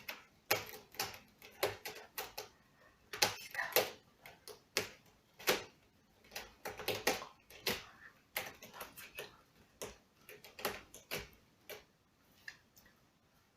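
A series of irregular sharp clicks and light knocks, roughly one or two a second, thinning out near the end.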